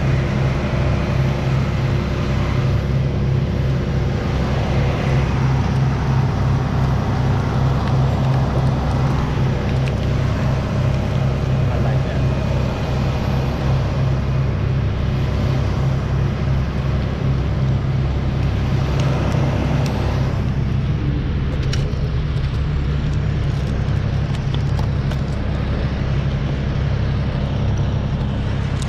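Truck engine running steadily at a constant speed, driving the hydraulics of a truck-mounted knuckle-boom crane.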